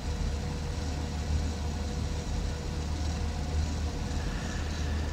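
Car engine and road noise heard from inside the cabin while driving: a steady low drone with a faint steady whine above it.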